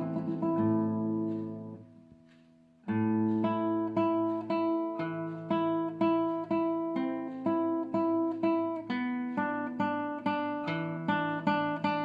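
Acoustic guitar music: plucked notes that fade almost to nothing about two seconds in, then start again about three seconds in as a steady run of picked notes.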